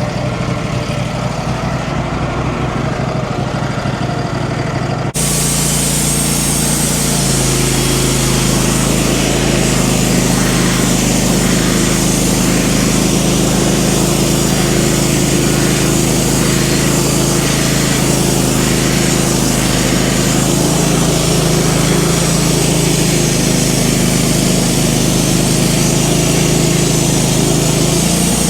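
Wood-Mizer LT15 portable bandsaw mill running, its engine steady; about five seconds in the sound abruptly turns to a loud steady hiss as the band blade cuts through an ash log, with the engine under load.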